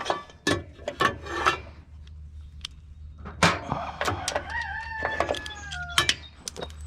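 A rooster crows once, a long call starting about four seconds in and falling in pitch at the end. Before and around it come sharp clicks and knocks of metal parts being handled, over a steady low hum.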